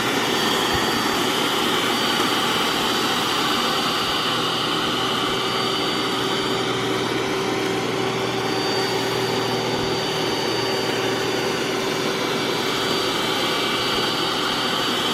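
iRobot Roomba s9+ robot vacuum running on max power, a steady whirring hiss with a constant hum and a thin high whine as it sucks up rice.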